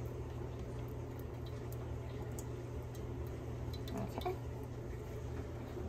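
Silicone spatula scraping out a glass bowl of glycerin: faint scattered ticks and taps, a few together about four seconds in, over a steady low hum.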